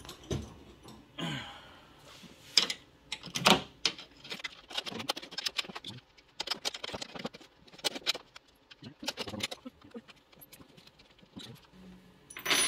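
Scattered light clicks and knocks of hands and tools handling plastic trim and bolts around a pickup truck's headlight, with a sharper click near the end.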